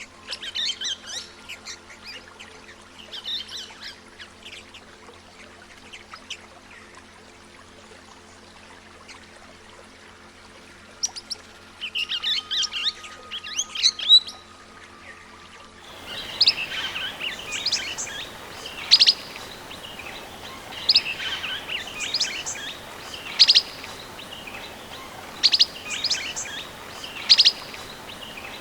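Swift parrots calling in groups of short, sharp, high-pitched chirps. A faint steady drone lies under the first half. About halfway through, the background turns to a steady hiss and the calls come louder, clipped and repeated every second or two.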